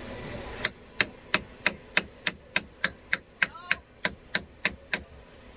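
A hammer striking in a quick, even series of about fifteen sharp blows, roughly three a second, stopping about five seconds in.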